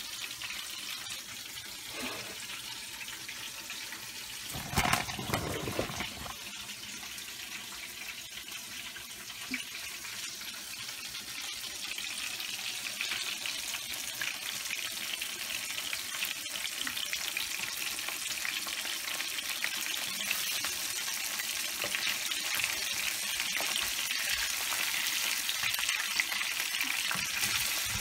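Breaded fish fillets sizzling in a frying pan, a steady high hiss that grows gradually louder. A brief, louder, fuller burst about five seconds in.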